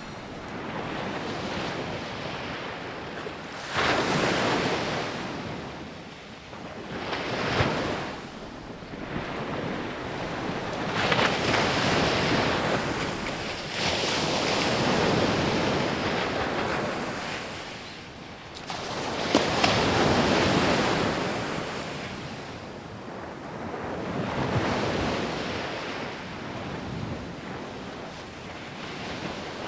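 Sea waves breaking on a beach. The surf swells and ebbs in repeated surges every few seconds.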